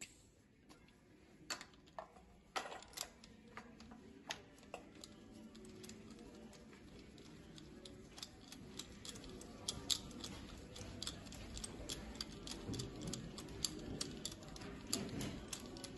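Small metallic clicks and ticks of hand tools working on a diesel engine's cylinder head, sparse at first and coming thick and fast in the second half, over faint handling noise: the compression gauge is being moved between cylinders.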